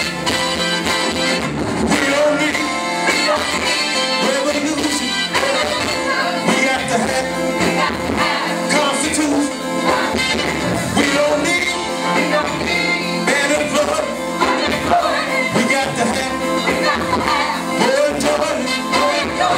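Live band music with singing: a full band with drums and electric guitar playing under lead and backing vocals.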